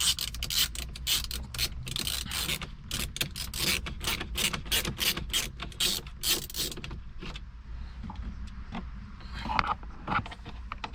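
A T20 Torx driver backing out the screws that hold the Volkswagen radio, with a quick run of repeated clicks as it turns, then fainter handling and one louder knock near the end.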